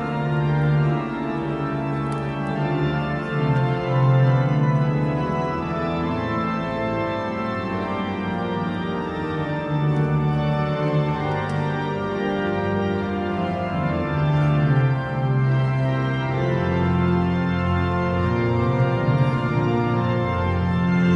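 Church organ playing a prelude: full held chords with the bass notes moving every few seconds, ringing in a large reverberant church.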